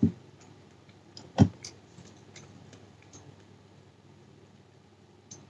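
A person chewing food with the mouth closed: soft, scattered mouth clicks, with a low thump at the start and a louder one about a second and a half in.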